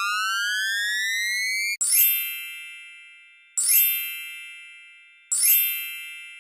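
Cartoon sound effects: a whistle-like tone rising steadily for nearly two seconds, then a bell-like chime struck three times, about one and three-quarter seconds apart, each ringing out and fading.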